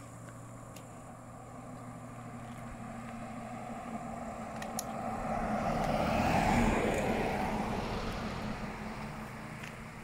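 Pickup truck driving past on the road, its engine and tyre noise rising to a peak about six and a half seconds in and then fading away.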